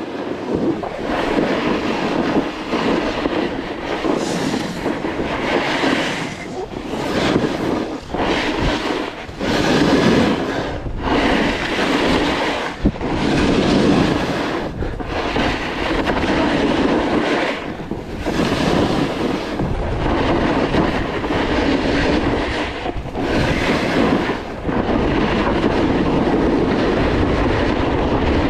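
Snowboard sliding and carving over tracked snow: a rough, continuous scraping rush that surges with each turn and dips briefly between them every second or two, settling into a steadier run near the end.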